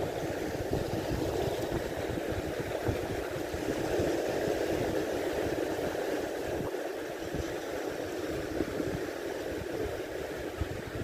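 Steady wind and sea noise: wind buffeting the microphone over small waves washing onto a rocky reef shore, easing slightly about two thirds of the way through.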